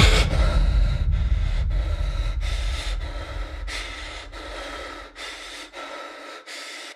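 Closing seconds of a progressive trance track after the beat drops out: a hissing synth noise wash with a few held tones, chopped by a rhythmic gate, fading down as the bass dies away, then cutting off suddenly into silence near the end.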